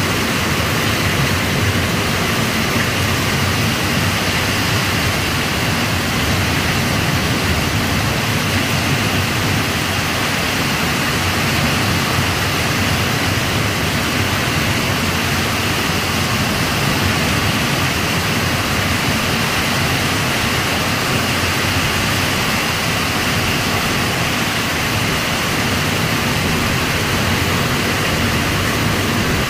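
Heavy rain falling in a steady downpour, a loud, even hiss with no let-up.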